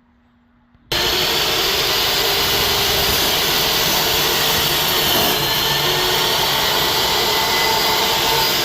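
Power miter saw motor running at full speed as it cuts through a 2x6 board, loud and steady after starting abruptly about a second in; near the end the motor begins to wind down with a falling whine.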